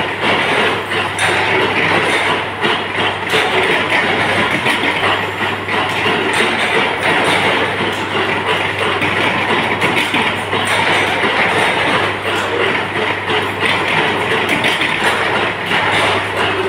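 Induction heating machine running under load while it heats steel rods in its copper coil: a loud, steady mechanical noise with a constant low electrical hum and irregular light clatter.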